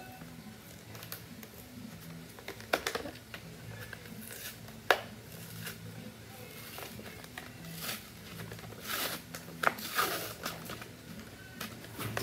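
Toy blister pack being torn open by hand: clear plastic crinkling and cracking against its cardboard backing card, with a few sharp snaps about 3 and 5 seconds in and a busier stretch of crinkling around 9 to 10 seconds. A low steady hum runs underneath.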